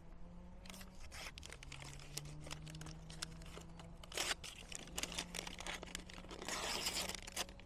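Small pocketknife blade cutting a sheet of paper, with paper rustling and crinkling. There are scattered short scrapes and a longer rustle near the end.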